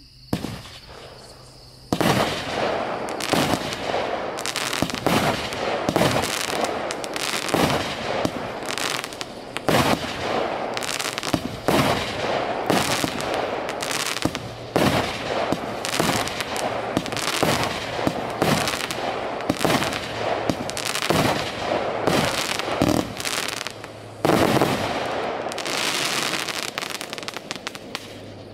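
A 25-shot firework cake firing: after about two seconds of faint hiss, shots go off in quick succession, about one a second, each a sharp bang of a tailed peony shell, with crackling stars between them. Near the end a dense stretch of crackle swells and then fades.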